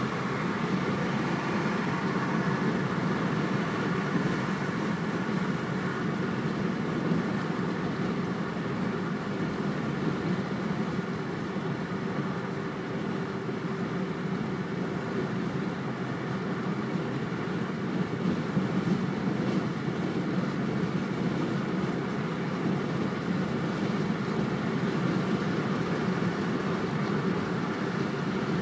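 Steady road and engine noise inside a Mercedes-Benz car's cabin while driving at freeway speed.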